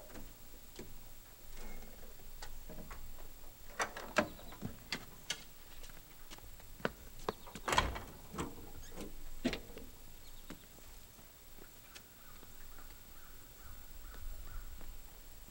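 A car's door and rear hatch being worked: a string of scattered clicks and knocks, the loudest about eight seconds in.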